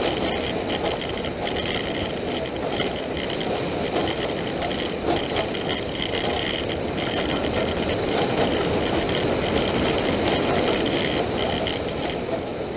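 Roller coaster train rolling along its steel track: a steady rumble of wheels on rail with rushing air.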